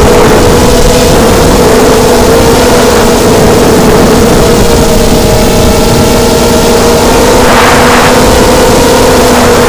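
FPV racing quadcopter's brushless motors (DYS BE1806 2300kv on 4S) and propellers whining steadily in flight, picked up by the onboard camera with loud rushing air noise. About eight seconds in there is a short surge of rushing noise.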